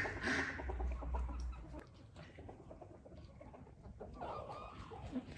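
Domestic white geese honking in quick repeated calls that stop about half a second in, then hens clucking softly with small scattered clicks.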